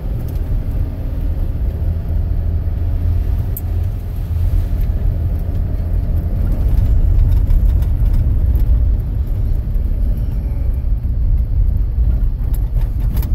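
Steady low engine and tyre rumble heard from inside the cab of a four-wheel-drive vehicle driving along a muddy dirt road.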